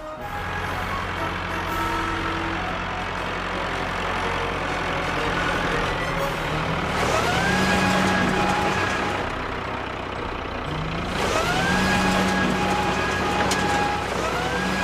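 Truck engine sound effect running steadily, with a rising whine that climbs and then holds, three times in the second half, like revving up through the gears.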